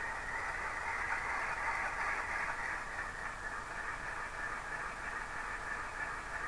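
Tsunami ALCO 251 V-16 sound decoder playing diesel engine sound through a tiny Sugar Cube speaker in a stationary model locomotive: a steady, hissy, thin engine sound with almost no bass.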